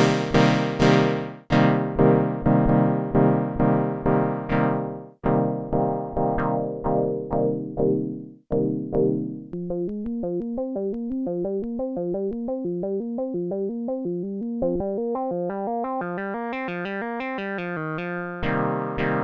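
Behringer Poly D analog polyphonic synthesizer, played dry: repeated plucky chords whose bright top closes off quickly on each stab, then, about halfway through, a fast run of single notes climbing and falling, before the chords come back near the end.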